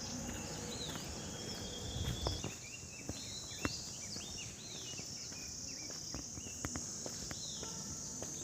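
Steady high-pitched insect chorus with many short, arching bird chirps and calls over it, and a few sharp clicks and knocks.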